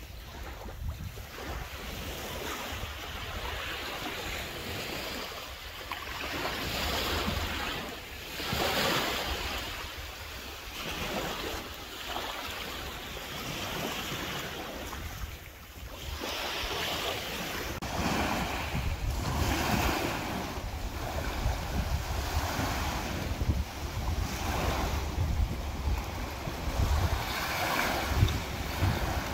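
Small sea waves breaking and washing up on a rocky, sandy shore, the wash swelling and falling every second or two, with wind rumbling on the microphone.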